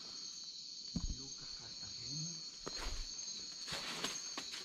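Steady high-pitched chorus of night insects. There is a sharp knock about a second in and a few scuffs and clicks near the end.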